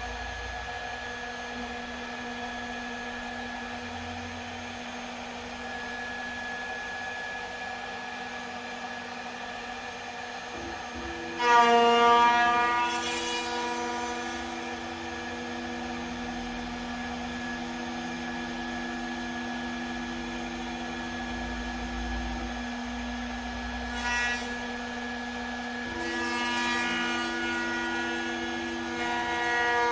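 CNC router running under its own program: a steady whine of several held tones from its motors. About a third of the way in a louder, higher whine starts suddenly and fades over a few seconds, and the sound grows louder again near the end.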